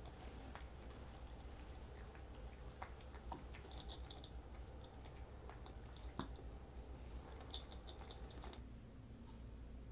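Faint small clicks and quick crackles from a plastic jug being tipped and held while a thick, not fully melted liquid pours slowly into a glass jar, with two short runs of crackling about four and seven seconds in, over a low steady hum.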